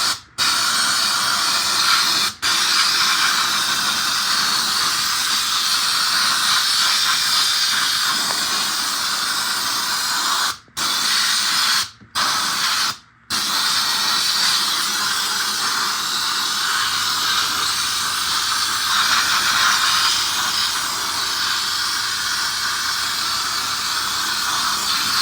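Air-powered sandblaster gun loaded with water instead of abrasive, spraying in a loud continuous hiss of compressed air and water. The trigger is let off briefly a few times: right at the start, about two seconds in, and three times between about 10 and 13 seconds.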